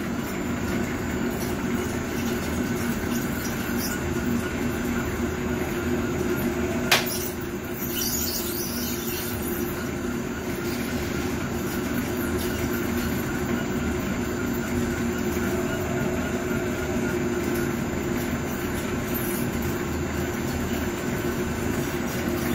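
Welly Puffing Machine S-3 grain snack extruder running steadily at start-up on brown rice: a constant mechanical drone from the motor and the extruder screw inside, with a single sharp click about seven seconds in.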